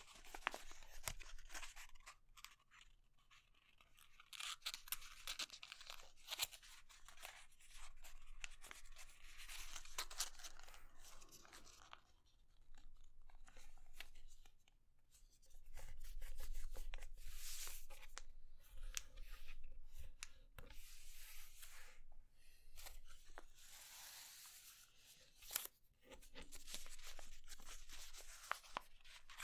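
A sheet of grid paper being folded and creased by hand: crinkling and rustling in bouts of a few seconds, with sharp crackles as the folds are pressed, broken by short pauses.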